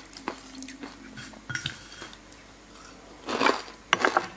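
A metal spoon and chopsticks clinking and scraping against a ceramic plate of salmon and noodles: a few separate light clinks, with a brief louder noise about three and a half seconds in.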